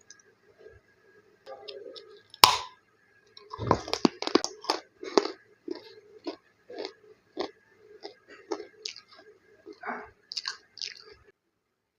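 A person bites into a crispy snack with one sharp crack, then chews it in a quick run of loud crunches. The crunching settles into steady chewing at about two chews a second and stops shortly before the end.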